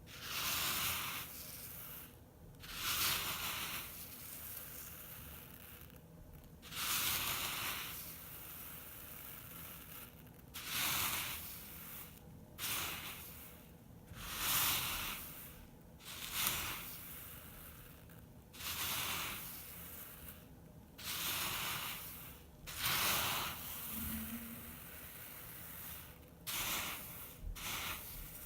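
Sand and gravel being handled and stirred, making a series of rustling bursts every two to four seconds with a softer hiss between them.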